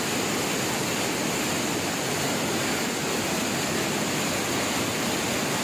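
Steady rushing of water tumbling over the rocks of a stream and small waterfall.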